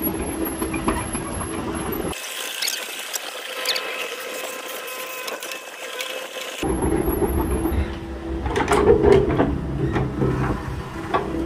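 Agricultural mini excavator's diesel engine running while it works, with metallic squealing and clanks from the machine. For about four seconds near the middle the low engine rumble drops out, leaving mostly the high squeal.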